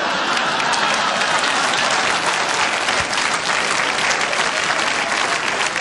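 Large theater audience applauding, a dense, steady clapping that holds at one level throughout.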